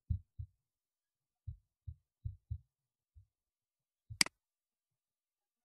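A handful of soft, low thumps, then a single sharp computer mouse click about four seconds in, with dead silence between them.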